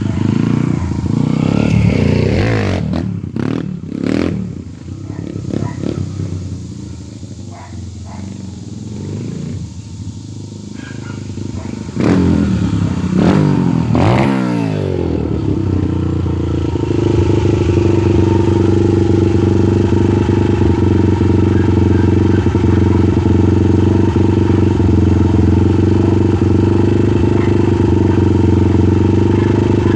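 Yamaha TT-R 125 pit bike's single-cylinder four-stroke engine, enlarged past 125 cc and breathing through an FMF 4.1 full exhaust system, running with its throttle blipped: revs rise and fall a few times in the first seconds, again about twelve seconds in, then it settles into a steady idle.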